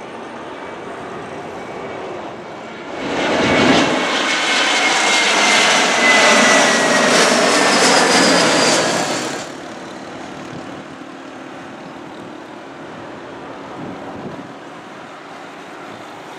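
Airbus A321-200 freighter's jet engines passing low overhead on final approach: a loud rush of jet noise comes in about three seconds in, with whining tones dropping in pitch as it goes by, then falls away about six seconds later to a steady, quieter background rush.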